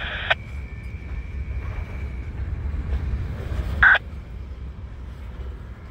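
Freight train of covered hopper cars rolling past, a steady low rumble of wheels on rail. A faint thin high tone fades out after about two seconds, and a short, sharp loud sound comes about four seconds in.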